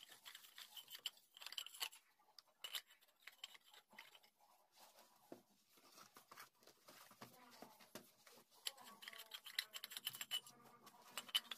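Manual ratchet pipe-threading die stock being worked on a galvanised iron pipe: faint, irregular ratchet clicks and the scrape of the die chasing the thread. This is a second, cleaning pass over a freshly cut thread.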